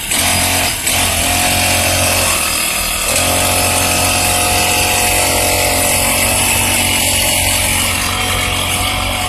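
Small engine of a motorized rice-paddy weeder running. Its note dips briefly about two seconds in, then it runs steadily again.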